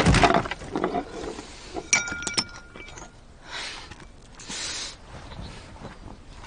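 A loud crash as something breaks. About two seconds in come a few sharp clinks of shards, each ringing briefly. Two soft rushes of noise follow.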